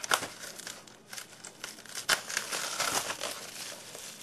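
Scissors and fingers working a model train coach out of a polystyrene foam packing tray: a run of sharp clicks and scratchy scraping of foam and plastic packaging, busiest from about two to three seconds in.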